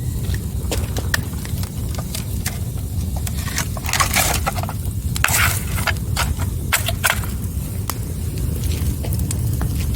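Wood fire burning, crackling and popping over a low steady rumble, with a denser run of louder pops about four to five and a half seconds in.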